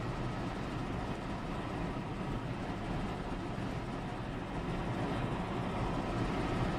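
Steady, even drone of a news helicopter's cabin and rotors, heard through the commentator's open microphone.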